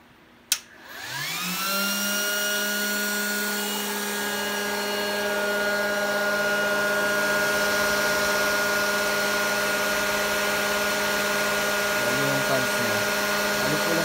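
Enclosed crypto-mining rig's cooling fans, Lian Li fans on the case side, starting up: a sharp click about half a second in, then several whines rising together for about a second before settling into a steady whir with a few steady tones over a rushing hiss.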